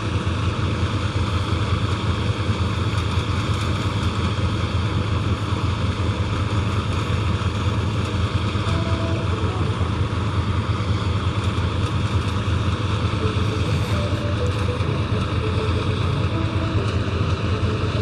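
Combine harvester running with its grain-unloading auger working, together with a tractor's engine beside it, making a steady low drone with no change.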